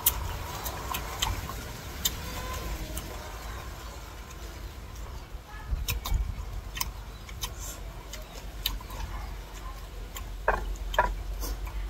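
Chewing crisp raw green mango: sharp crunches and clicks at irregular intervals, over a low steady rumble.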